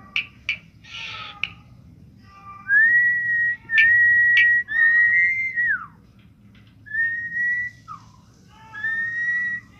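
A series of five long, clear whistles at one steady pitch, the third ending in a falling glide. A few sharp clicks come near the start.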